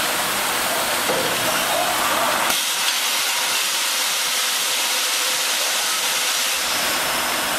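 Automated cold-chamber aluminium die casting cell running: a steady, loud hiss of machinery, with the low rumble beneath it dropping away from about two and a half seconds in until about six and a half seconds in.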